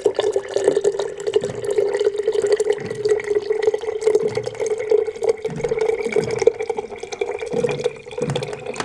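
Water running from a water dispenser into a glass mason jar, splashing onto the turmeric mixture in the bottom. A steady hum runs under it and stops about seven seconds in, and a faint tone slowly rises in pitch as the jar fills.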